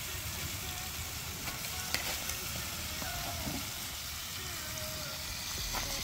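Curry bird cooking in a pot over an open wood fire: a steady sizzle, with a sharp click about two seconds in.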